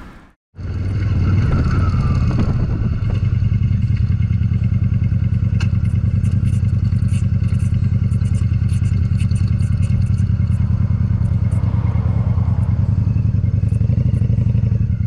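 Motorcycle engine running steadily as it rides along a dirt track, a low, fast pulsing note, with scattered light ticks and rattles. It starts abruptly about half a second in.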